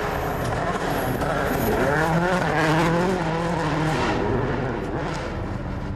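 Citroën C4 WRC rally car's turbocharged four-cylinder engine revving up and down as it drives hard through the stage. The sound is loudest about halfway through and fades away over the last couple of seconds.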